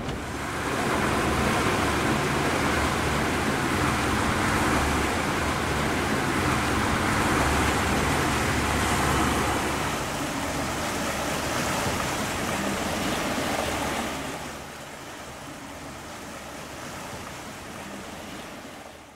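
Wind and rushing sea water around a sailboat under way at sea, a steady rush with low rumble beneath. About three quarters of the way through it drops quieter, and it cuts off at the end.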